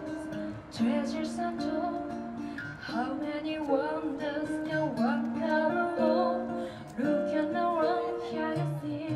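A woman singing a song into a microphone, accompanied by an acoustic guitar.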